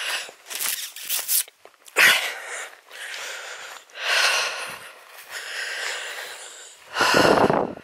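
A person breathing hard, with loud breaths in and out about once a second, close to the microphone. This is the breathing of a hiker short of breath while walking up a rising path.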